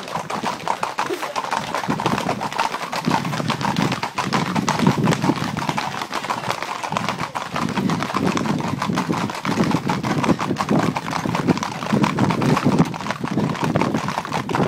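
A continuous, dense clatter of many hooves on an asphalt road: a herd of Camargue horses moving at pace with bulls among them.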